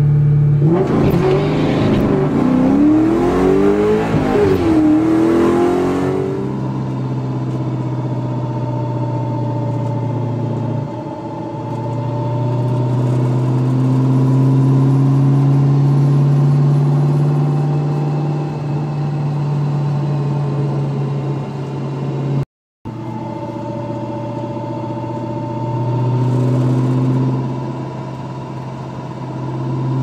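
A Ford Mustang Mach 1's V8 revving hard for the first few seconds, rising and falling in pitch. Then the car is heard driving with a steady whine that comes through the drivetrain and up through the shifter. The whine is from a pressed-on ABS reluctor ring that had come loose and was freewheeling.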